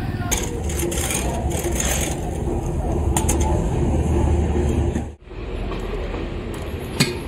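Steady low rumble of running vehicle engines, with a brief drop-out about five seconds in and a sharp click near the end.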